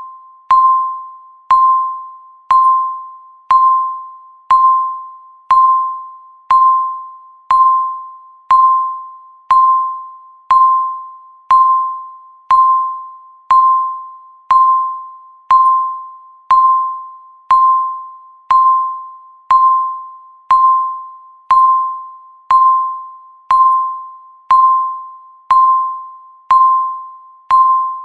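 Countdown timer's electronic beep marking each second: a single tone that starts sharply and fades away, repeating evenly about once a second.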